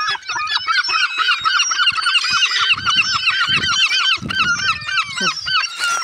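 Herring gulls squabbling over food, calling loudly in a fast run of short, harsh yelping notes, about five a second, with other gulls' calls overlapping. The run stops shortly before the end.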